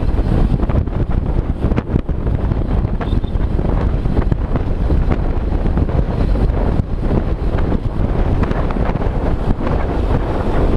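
Wind buffeting the microphone of a camera moving at speed: a loud, steady rumble with scattered small ticks.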